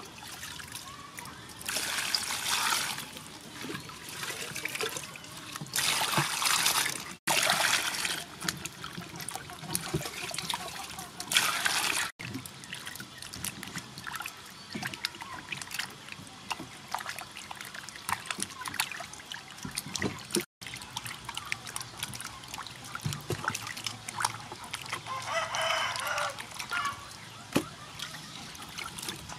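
Vegetables being washed by hand in a stainless steel bowl of water: water splashing and sloshing, with a few louder surges of splashing and small knocks of vegetables against the bowl.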